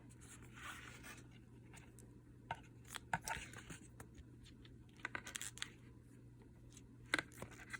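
Faint handling noises: a few light clicks and taps with soft rustling, as small cosmetic items and packaging are handled, over a low steady hum.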